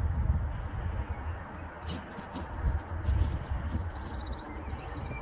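Low rumbling noise throughout, with a few light clicks about two seconds in, and a bird's short rapid chirping trill near the end.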